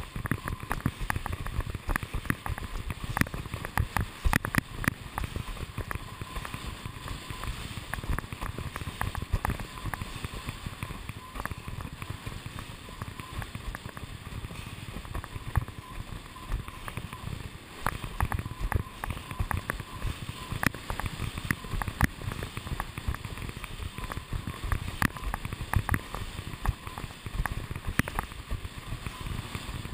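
Windsurf board planing over choppy water: a steady rush of water and wind, broken by rapid, irregular slaps of the hull on the chop.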